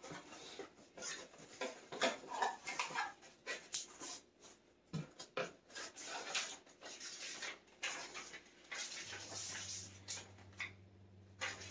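Cardboard box flaps being opened and paper packing being pulled out and handled: quiet, irregular rustling, scraping and light clicks.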